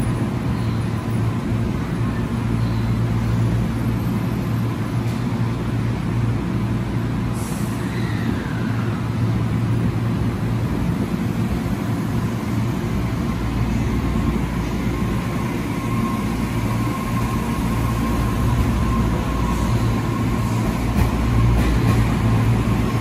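Tobu Urban Park Line electric commuter train standing at the platform with a steady low hum from its equipment, then starting to pull out near the end, its running sound growing a little louder.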